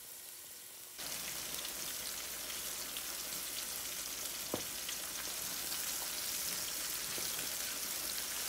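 Coated chicken pieces deep-frying in a pot of very hot oil: a dense, steady sizzle with scattered pops and crackles. It steps up in level about a second in, taking over from the lighter sizzle of garlic cloves in oil.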